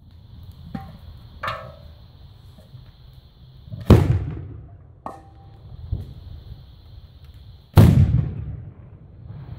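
Carbide cannon shots: milk churns charged with calcium carbide and water, the acetylene inside ignited. Two loud bangs about four seconds apart, each trailing off over about a second, with a few lighter knocks between them.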